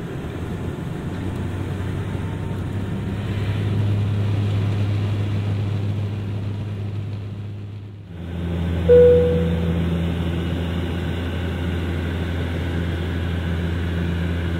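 Bombardier Q400's Pratt & Whitney PW150A turboprop engines and propellers droning at takeoff power, heard from inside the cabin during the takeoff roll. About eight seconds in, the sound briefly dips and gives way to a steadier climb drone with an even low hum. A single short chime sounds about a second after the dip.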